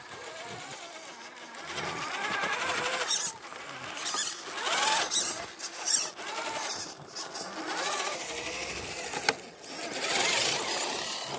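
The electric motor and geared drivetrain of a 1/10-scale RC rock crawler whining, the pitch rising and falling with the throttle as it climbs a rock step. Several louder bursts of hiss come through, about three, five and ten seconds in.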